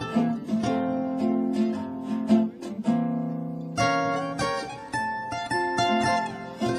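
Instrumental background music on plucked string instruments: a guitar strumming chords under a plucked melody.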